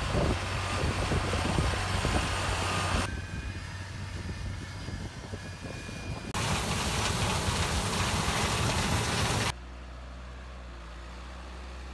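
John Deere farm tractor engines running in a string of short clips, the sound changing abruptly three times as the clips cut. The last clip is quieter, a steady low engine note.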